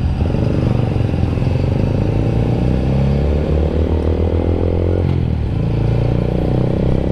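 Honda Grom's small single-cylinder engine under way, its note climbing slowly as it pulls, then dropping suddenly about five seconds in and holding steady after.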